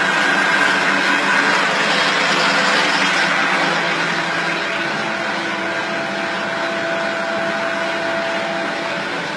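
Steady, loud mechanical running noise, unbroken throughout, with a faint thin whine joining in about halfway through.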